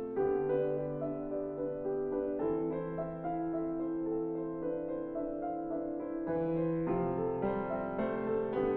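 Background music: slow, soft piano chords, each held for a second or more before the next.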